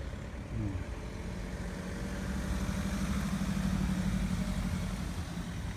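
A motor vehicle's engine running steadily, growing louder to about four seconds in and then fading a little.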